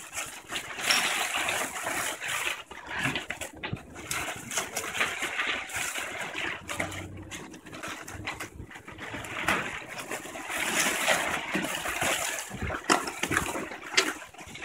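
Ice and water splashing and rattling irregularly as they are tipped into a backhoe loader's bucket, with scattered sharp clicks.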